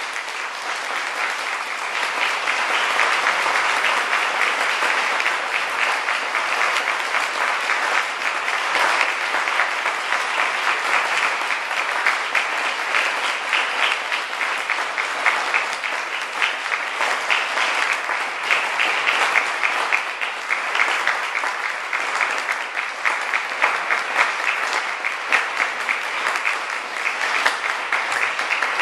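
Audience applauding steadily, a dense sustained clapping that carries on throughout.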